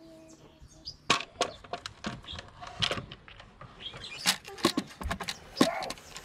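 Plastic air filter housing cover being handled and fitted into place over the filter, giving a string of irregular plastic clicks and knocks.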